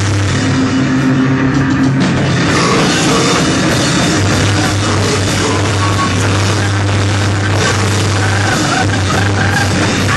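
Loud live noise-rock band playing: drum kit and cymbals, saxophone and electric guitar in a dense wall of sound over a steady low drone.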